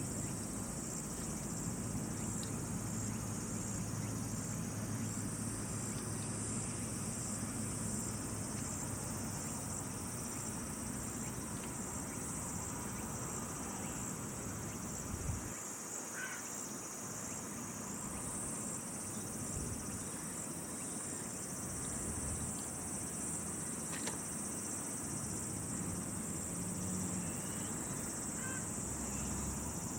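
Insects chirping steadily in a continuous high-pitched trill, over a low rumble of outdoor background noise, with a faint click about halfway through.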